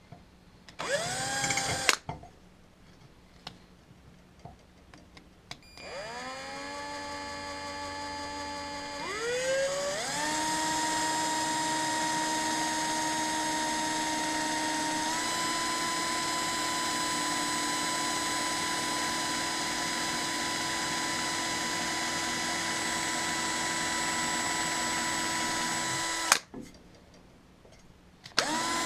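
Electric drill running, drilling a small hole into a brass check valve. It spins up briefly twice at the start, speeds up in two steps about six and ten seconds in, holds a steady whine, and stops suddenly a couple of seconds before the end, then starts again.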